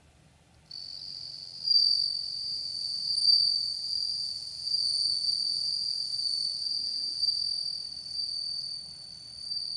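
Bell cricket (suzumushi) singing by rubbing its wings together: one high, steady ringing trill that starts just under a second in and carries on unbroken.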